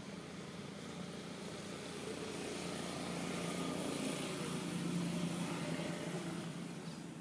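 An engine passing by: a steady low hum that grows louder to a peak about two-thirds of the way through, then fades.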